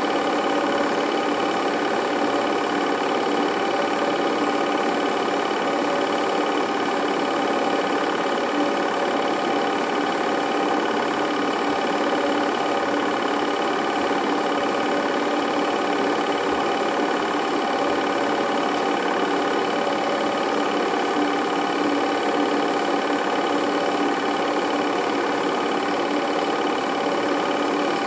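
Film projector running steadily, its motor and film transport making an even mechanical noise with no change across the scene cuts.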